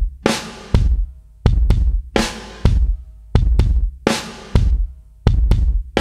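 Background music: a drum-led track with a steady beat of heavy bass drum and snare or cymbal hits, about one every 0.7 seconds, over a faint held chord.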